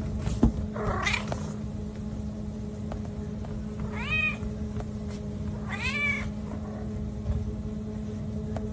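A domestic cat meowing: two drawn-out meows, each rising and falling in pitch, about two seconds apart, over a steady background hum.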